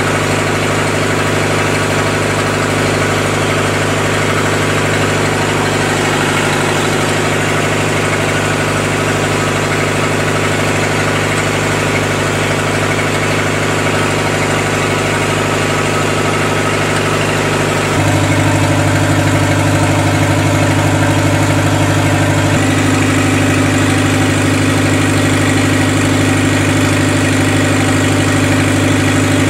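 Lister four-cylinder diesel generator engine running steadily. About 18 seconds in its note abruptly gets louder and heavier, and shifts again about four seconds later, consistent with the house load being switched onto the generator.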